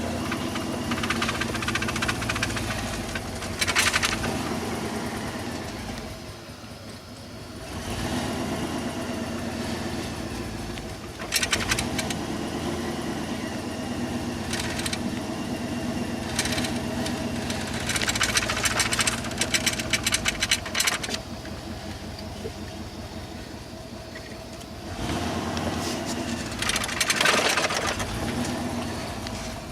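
Vehicle engine running while driving, its pitch shifting, with several loud bursts of rapid crackling or rattling.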